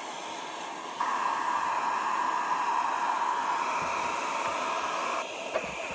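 Handheld hair dryer running, blowing hot air in a steady whooshing hiss with a held whine. It gets louder about a second in and drops back a little near the end.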